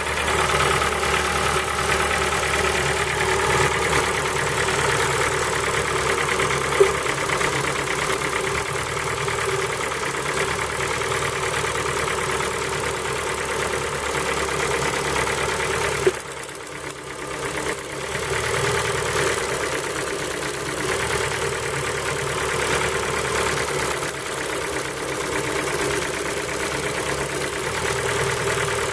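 Ford Focus 3's PNDA 1.6-litre petrol four-cylinder idling cold, with a knock that the owner puts down to the piston pins. A sharp click about seven seconds in and another about sixteen seconds in, after which the sound is briefly quieter.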